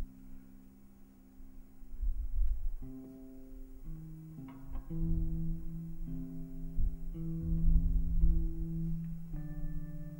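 Instrumental film score played live, led by plucked guitar notes, with a deep low rumble underneath from about two seconds in.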